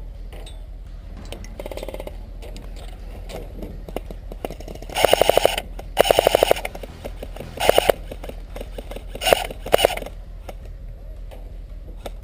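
Airsoft electric rifle firing on full auto: five short rapid bursts of clicking shots starting about five seconds in, the last two close together.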